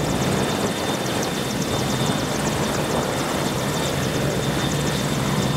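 AgustaWestland AW101 Merlin helicopter running steadily, its three turboshaft engines and rotor making a continuous noise with a steady high whine on top.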